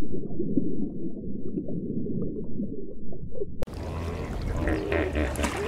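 Muffled underwater ambience: a low rumble of water with small bubbling blips. About three and a half seconds in it cuts to brighter water sounds above the surface over a low, steady hum.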